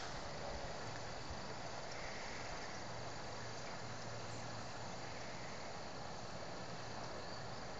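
Steady outdoor background noise: an even hiss with a faint, unbroken high tone and no distinct events.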